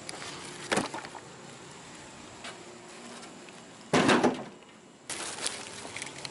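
Chevy Astro van's hood being opened: a loud clunk about four seconds in as the latch is worked and the hood goes up, with a sharp knock about a second in and rustling and light clicks near the end.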